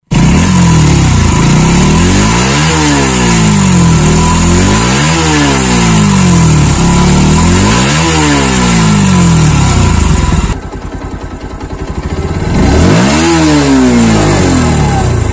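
Bajaj Pulsar NS125's single-cylinder four-stroke engine and exhaust being revved while the bike stands still, the pitch climbing and falling in a rev about every two and a half seconds. It drops back to a quieter idle for about two seconds near the end, then revs once more.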